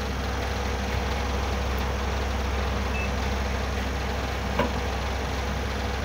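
Steady hum of a running refrigerator-freezer compressor together with the whir of an electric pedestal fan blowing on it to cool the overheating compressor. There is a faint tick a little past halfway.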